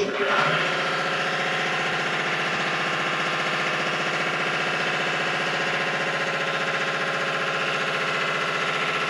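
A shop machine running steadily, an even buzzing hum with a fast pulse in it that starts abruptly and holds at one level.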